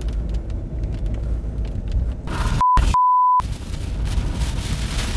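Moving vehicle with a low road-and-engine rumble. About two and a half seconds in, the audio drops out for two steady single-tone bleeps, one short and one longer, of the kind dubbed over a swear word. A rougher hiss of wind and rain on the vehicle follows.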